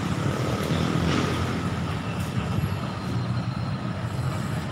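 Steady low rumble of road traffic, with a faint steady whine over it.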